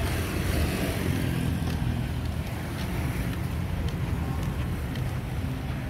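Street traffic ambience: vehicles running along a busy city road, a steady low rumble.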